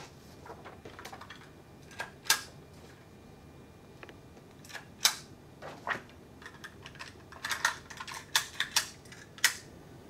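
Irregular sharp clicks and snaps of a desk stapler being opened and worked by hand, coming thicker near the end.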